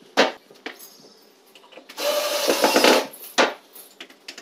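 Cordless drill driving a screw through a metal bracket into the wooden cabinet, running for about a second a couple of seconds in. A sharp knock comes near the start and a short click after the drilling.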